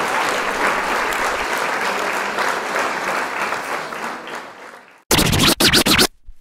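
Applause that fades out over the first few seconds. About five seconds in, loud choppy bursts of music start abruptly and cut in and out.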